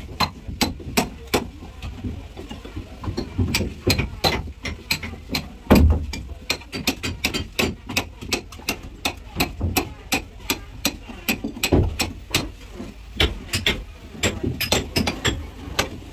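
Hand tools knocking on the wooden hull of a fishing boat under repair: quick, irregular sharp strikes, a few each second, with heavier thuds about six and twelve seconds in.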